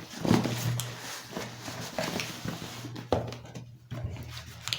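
Cardboard packaging being handled and opened, with rustles and small knocks, over a steady low hum that drops out briefly near the end.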